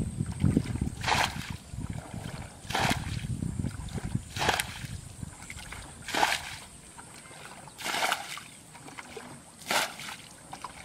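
Six short splashes in shallow muddy water, evenly spaced about one every second and a half to two seconds.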